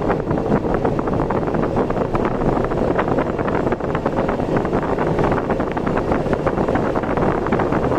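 Steady wind rushing and buffeting over the microphone, with low, constant road and engine noise of a vehicle on the move.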